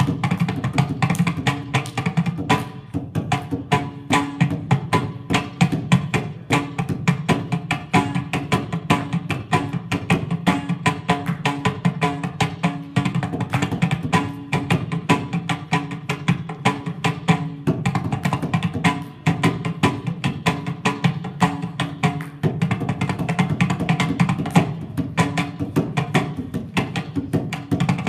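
Mridangam played solo: fast, dense strokes on both heads, the right head ringing at its tuned pitch, in a tisra jati triputa tala rhythm in two-kalai tempo.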